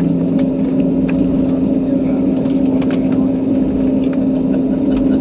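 Aircraft engine drone heard inside the passenger cabin: a loud, steady hum with a few faint ticks over it.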